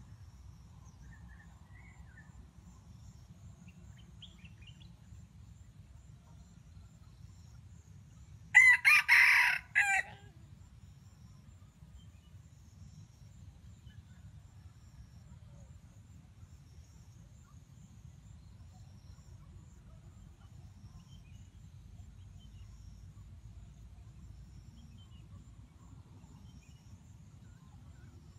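A junglefowl rooster crows once, loud and short, lasting about a second and a half, about a third of the way in. Behind it there is a faint low steady rumble with a few faint distant bird chirps.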